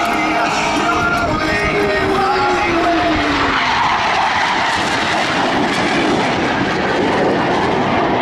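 Blue Angels F/A-18 Hornet jets flying past, a loud, continuous jet-engine roar. A whine falls in pitch about two to three seconds in as the jets go by.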